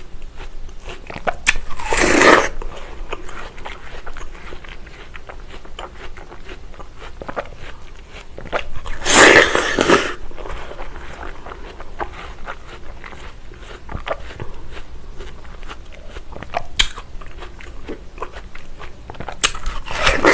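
Close-miked biting and chewing of fresh watermelon: three loud bites into the flesh, about two seconds in, around nine seconds and at the very end, with crunching chewing in between.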